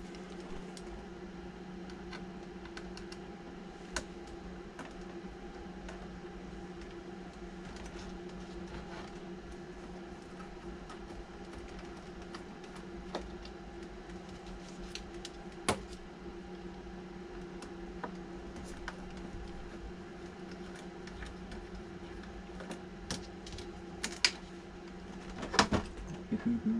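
Light, scattered clicks and taps of a small screwdriver working tiny body screws out of an RC lowrider's metal chassis, with a few louder clicks near the end, over a steady low hum.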